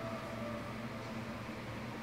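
Film soundtrack playing through cinema speakers, recorded off the screen: a low steady drone with hiss, with held music notes fading out in the first second.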